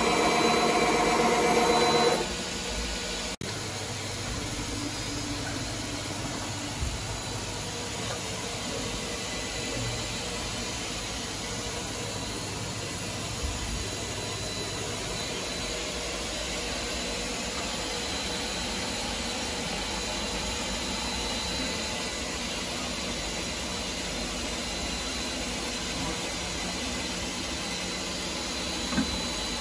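ALMAC FC 1105 vertical machining centre running: a pitched motor whine for the first two seconds cuts off abruptly, followed by a single click. After that the powered machine gives a steady hum and hiss.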